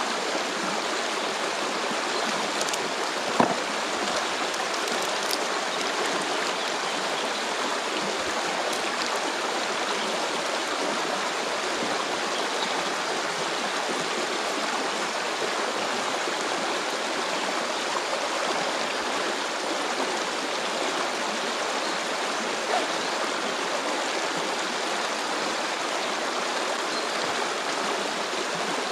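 A stream flowing with a steady rushing sound, with a short knock about three seconds in.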